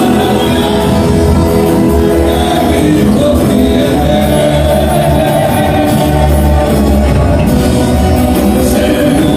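A live gospel band playing loud, amplified worship music, with voices singing over it.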